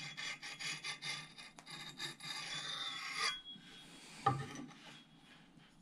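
Ochsenkopf combination sharpening puck rubbed back and forth across an axe's steel edge in quick, light strokes: honing the micro bevel. The strokes stop about three seconds in, and a single knock follows about a second later.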